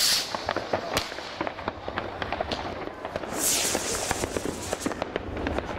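Fireworks and firecrackers going off all over a town, near and far: a constant scatter of sharp bangs and crackles. A hissing burst comes at the very start and another about three and a half seconds in.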